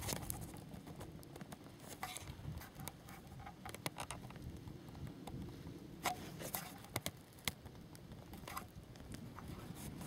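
Faint water patter and lapping around a canoe on a lake, with scattered soft clicks and knocks.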